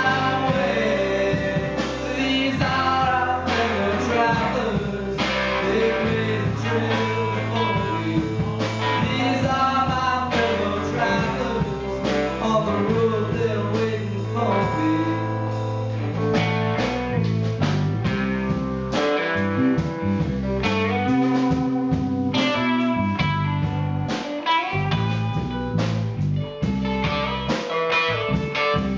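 Live rock band playing a song: electric guitars and a drum kit, with a man singing over them.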